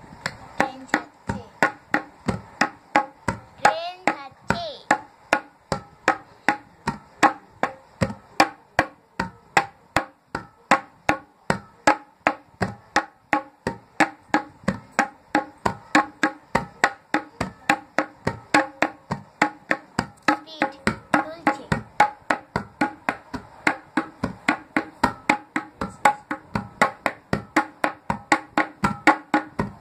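Tabla pair, dayan and bayan, played in a steady, even rhythm of ringing strokes, a few a second, a pattern imitating a moving train.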